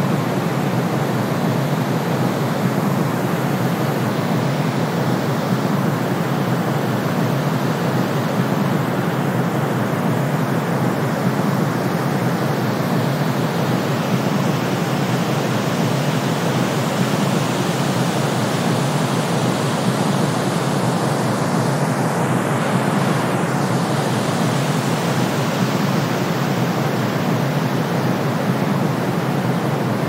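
Brown noise mixed with white noise: a steady, unbroken hiss, heaviest in the low range.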